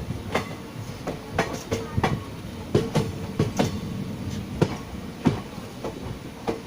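Train wheels clacking over rail joints as the train rolls along, a couple of sharp knocks each second at uneven spacing over a steady running rumble.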